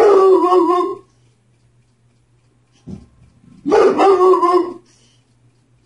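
Boxer dog barking at the mail carrier: two long, drawn-out barks of about a second each, a few seconds apart, with a short bark just before the second one.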